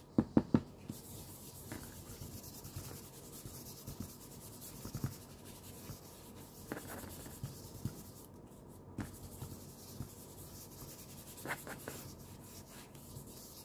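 An ink blending tool rubbed and scrubbed over the torn edges of paper, a soft, scratchy rubbing, as the paper is stained with ink. A few sharp taps come right at the start.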